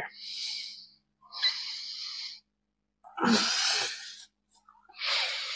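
A woman breathing audibly while holding a yoga forearm stand: four breaths about a second apart, the third the loudest.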